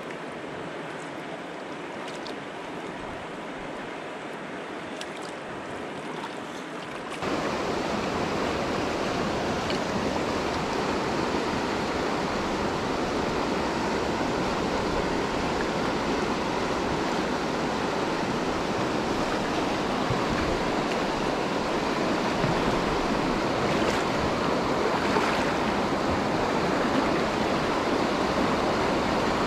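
Fast river water rushing over a stony bed through rapids, a steady noise that steps up louder about seven seconds in.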